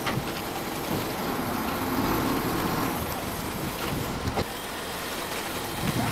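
Mitsubishi light truck's diesel engine running under a heavy load as it creeps with a tall stack of logs, a steady rumble.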